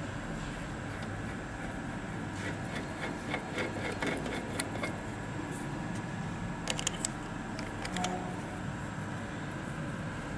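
Small metallic clicks and taps from hand tools being worked on a Scania EUI unit injector held in a bench vise. There is a run of light ticks about two and a half seconds in and a few sharper clicks near seven seconds, over a steady background hum.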